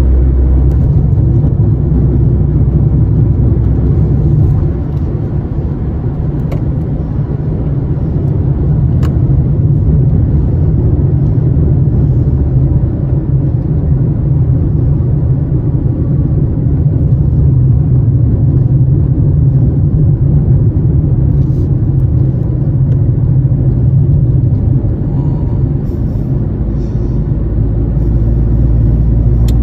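Car driving on a highway, heard from inside the cabin: a steady low rumble of engine and tyres on the road.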